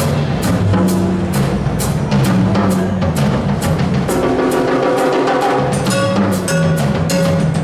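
Drum kit played in a steady beat, with bass drum and snare hits about three times a second, over low held notes that change pitch every second or so.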